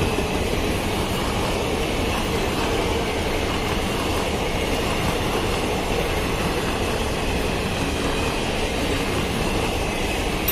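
Passenger coaches of a superfast express train running through a station at speed without stopping: a loud, steady noise of wheels on the rails.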